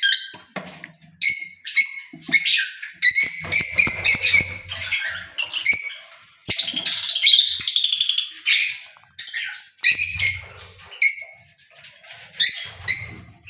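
Lovebirds calling: a run of loud, harsh, high-pitched chirps and squawks in short bursts, with a longer fast chattering call about halfway through.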